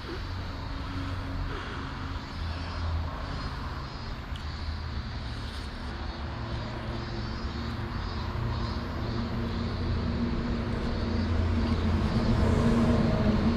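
A steady engine drone with a low hum, growing louder toward the end.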